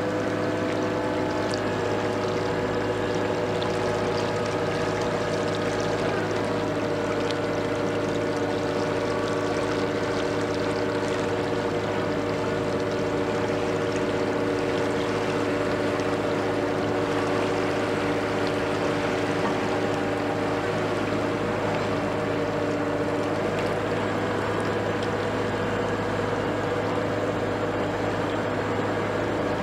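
An engine running steadily, a constant multi-toned hum over a wash of noise, its tones shifting slightly about six seconds in.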